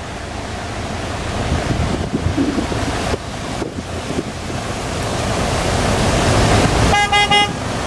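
Cars driving through floodwater on a street, their tyres splashing with a steady rushing wash that swells as a car passes near the end, with wind buffeting the microphone. Near the end a brief steady pitched tone sounds for about half a second.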